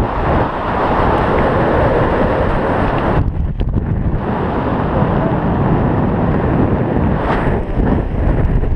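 Wind buffeting a wrist-mounted camera's microphone just after a tandem parachute canopy has opened, a loud steady rush that eases briefly a little past three seconds in.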